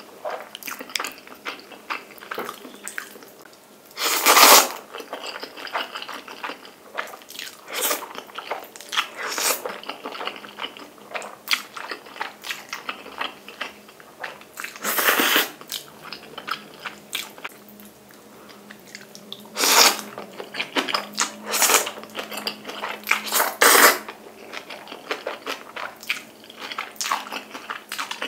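Close-up eating of jjapagetti black bean sauce noodles: wet chewing and lip smacks throughout, broken by several loud slurps of noodles, the loudest about four seconds in.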